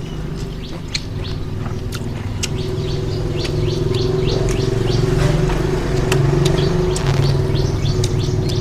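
Small birds chirping rapidly in short downward-sliding notes over a steady motor hum that grows louder through the middle and then eases, like a vehicle passing by.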